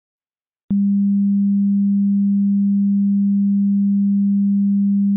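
A single steady, low electronic pure tone, like a hum, that switches on with a click a little under a second in after silence and holds unchanged.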